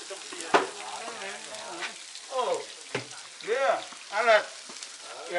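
Sausages sizzling on a hot barbecue plate, a steady hiss with a couple of sharp clicks, about half a second in and again around three seconds. Voices chat in the background.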